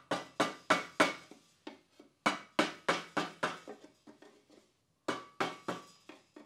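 Hammer blows through a wooden block onto a rust-seized bearing and its housing, driving it free. The strikes come about three a second in runs broken by short pauses, each with a brief metallic ring.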